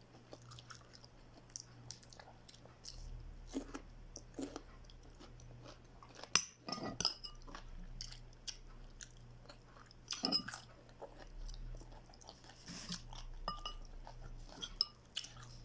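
Close-up chewing with crunches of raw cucumber, in short irregular spurts, with scattered light clicks of utensils on a plate.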